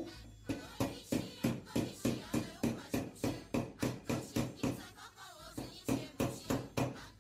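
Hammer blows on a steel rod clamped in a bending jig, about three strikes a second, spacing out into a few slower blows near the end.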